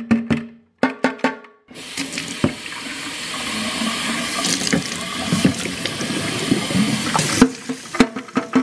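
A few sharp knocks, then a tap running steadily into a stainless-steel sink for about six seconds as a black plastic sink P-trap is rinsed out under the stream, washing out clumps of drain sludge; a few more knocks near the end.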